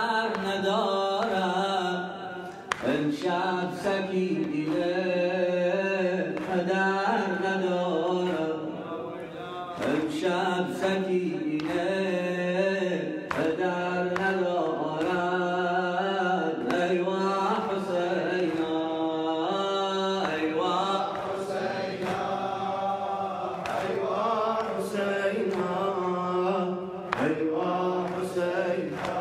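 Male voices chanting a mournful Shia elegy melody, a latmiyya, over a steady low drone, with sharp beats about once a second.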